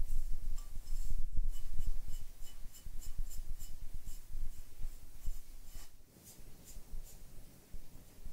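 Glaze brush dabbing and stroking wet glaze onto a bisque-fired clay cup: soft scratchy brushing with many light ticks. It is louder in the first couple of seconds and quieter from about six seconds in.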